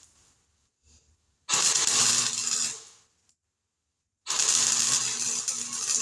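Electric welder arc crackling as tack welds are laid on thin sheet-metal patches: two bursts, the first about a second long and the second starting about halfway through and still going at the end, each with a low hum under the crackle.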